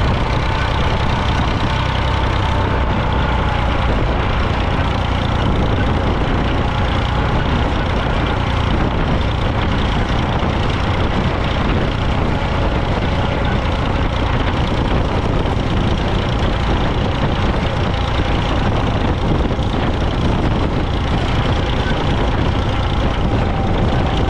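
International 454 tractor's diesel engine running steadily.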